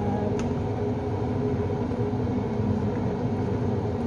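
Steady low rumbling hum of a gas stove burner under a pot of soup at a rolling boil, with one light click of a spatula against the pot about half a second in.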